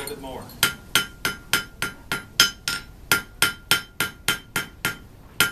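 Blacksmith's hammer striking red-hot steel on an anvil to draw out a point: a steady run of blows, about three a second, each with a short ring from the anvil, starting about half a second in and pausing briefly near the end.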